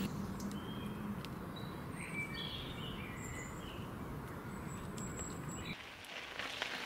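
Faint outdoor background noise with a few short bird chirps about two seconds in. The background changes near the end.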